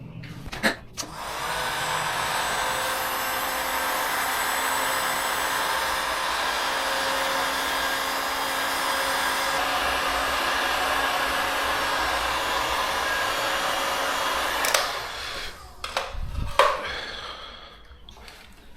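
Heat gun's blower running steadily for about fourteen seconds, then switched off. A sharp knock comes just before it starts, and a few knocks follow after it stops.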